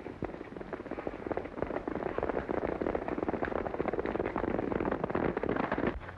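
Hoofbeats of several galloping horses, a dense rapid clatter that grows louder as the riders come closer and breaks off about six seconds in.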